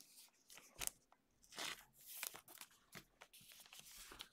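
Faint rustling and light clicks of trading cards being handled and laid on a stack, with one soft tap just under a second in.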